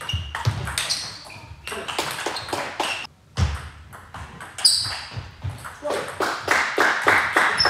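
Table tennis ball clicking off bats and table in quick succession during rallies, with a short pause about three seconds in before play resumes.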